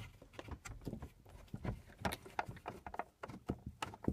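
A Torx screwdriver turning out the T5 Torx screws that hold a Volvo V50's sunroof glass: a run of small, irregular metal clicks and scrapes, several a second.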